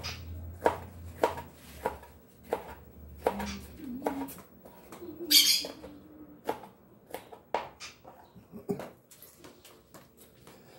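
A kitchen knife slicing a green pepper into rings on a plastic cutting board, the blade knocking on the board about every half second. A short, louder rasping noise comes about five seconds in.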